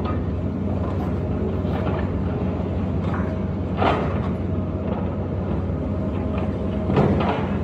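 Tracked demolition excavator's diesel engine running steadily under load, with crunching crashes as it tears into the steel roof structure: a loud one about four seconds in and another near the end.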